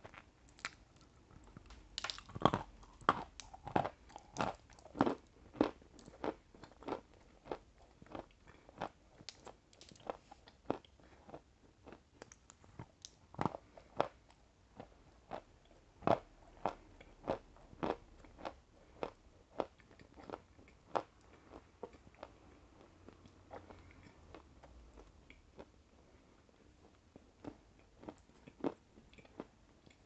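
Close-miked biting and chewing of a dry, crunchy chunk of 'Velvet' (barkhat) edible clay: sharp, irregular crunches, loudest and most frequent in the first few seconds, then softer and sparser as it is chewed down.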